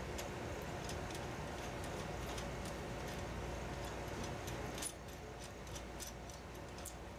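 Low steady hum of a label laminating and die-cutting machine running, with faint scattered clicks and ticks as a knob on its side panel is turned by hand. The hum drops in level about five seconds in, just after a slightly louder click.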